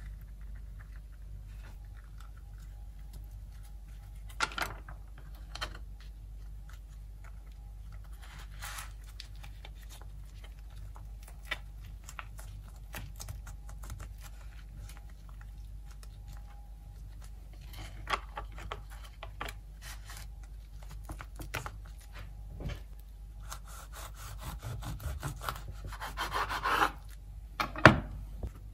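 Food prep on a wooden cutting board: scattered soft taps and rubs as a tortilla wrap is handled and rolled. Near the end a serrated knife saws through the rolled wrap, followed by a sharp knock of the blade on the board.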